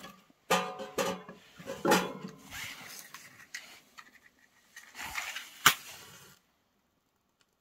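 Split firewood being handled in the firebox of a small steel tent wood stove: logs knock and clatter against each other and against the steel, a series of separate wooden knocks with one sharp knock near the end.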